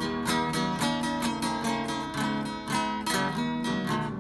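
Acoustic guitar strummed in a steady rhythm of chords, playing out the end of the song after the last sung line.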